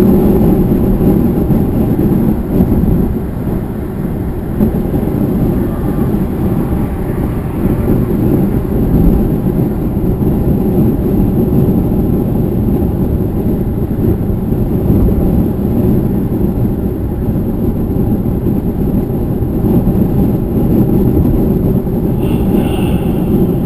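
Steady low rumble of road and engine noise heard inside a car's cabin while driving at highway speed.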